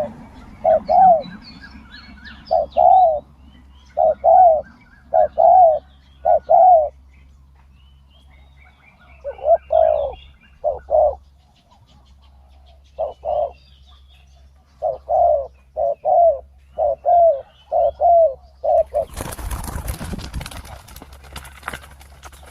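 Spotted doves cooing: short arched coo notes in repeated phrases, with a few small birds chirping faintly higher up. Near the end the cooing stops and a few seconds of rustling noise take over.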